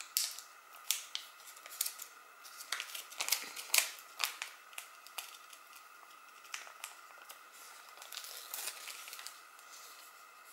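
Paper sticker backing and clear transfer tape crinkling and crackling as a small sticker is peeled off by hand, in quick bursts of crackles through the first half, then a softer rustle as it is pressed down.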